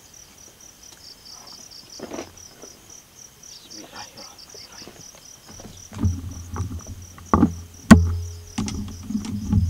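Crickets chirping in a steady pulsing trill. From about six seconds in, low rumbling handling noise and thumps of someone getting up and moving about, with a sharp loud knock about eight seconds in.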